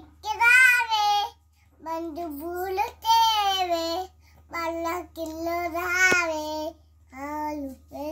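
A two-year-old child singing a Telugu nursery rhyme unaccompanied, in short high-pitched phrases with brief pauses between them.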